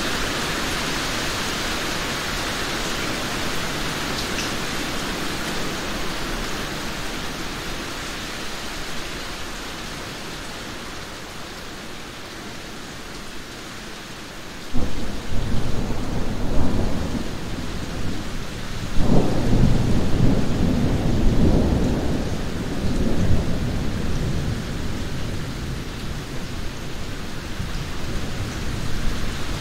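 Steady rain hiss that slowly fades. About halfway through a sudden clap of thunder breaks into a long low rumble that swells again several times under the rain.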